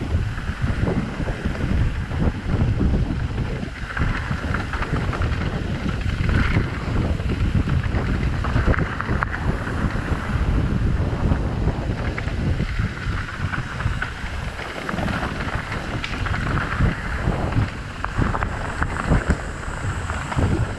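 Wind buffeting the microphone, a loud, uneven low noise that swells and drops in gusts.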